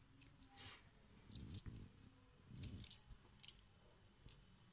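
Faint scattered clicks and light rattles of a small aluminium-and-steel mini tripod being handled as its legs are swung open.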